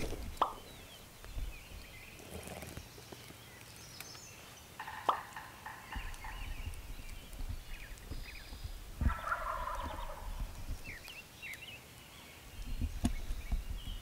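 Wild turkey gobblers gobbling from the roost in the trees, two gobbles, one near the middle and a stronger one a few seconds later.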